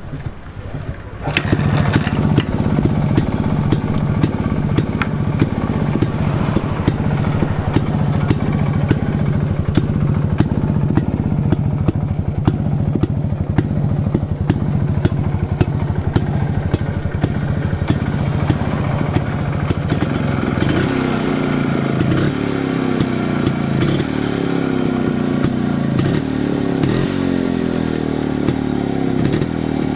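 A restored vintage Yezdi motorcycle's two-stroke engine starts about a second in and settles into a steady idle, then from about twenty seconds in is revved up and down.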